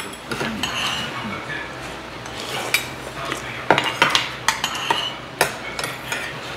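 Metal spoons scraping and clinking against a stainless steel rice bowl and an earthenware ttukbaegi bowl, with a quick run of sharp clinks in the middle.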